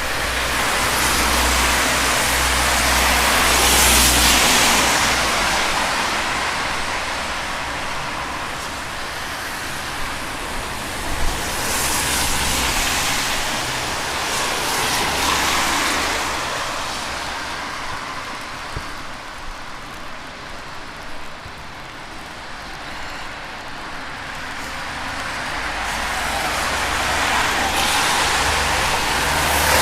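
Cars passing one after another on a wet road, each a swell of tyre hiss that rises and fades, about four over half a minute, over a steady low traffic rumble.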